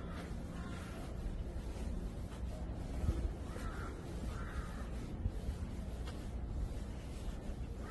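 A crow cawing a few times, short harsh calls with two clearer ones near the middle, over a steady low rumble.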